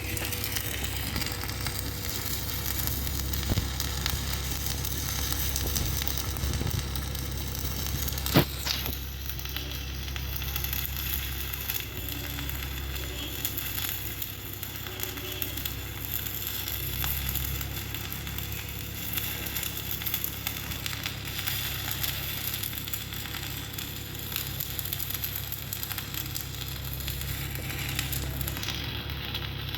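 Shielded metal arc (stick) welding with a 3.2 mm E6013 rod at about 70 amps: a steady sizzling crackle of the arc, with a single sharp crack about eight seconds in.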